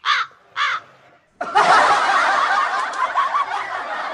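Two short high-pitched calls, then, about a second and a half in, a dense burst of many people laughing and snickering that starts abruptly and slowly tails off, like a dubbed-in laugh track.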